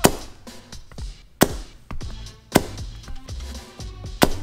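Four sharp mallet blows on 3D-printed resin lattice balls on a rubber mat, a little over a second apart, the brittle resin cracking into pieces.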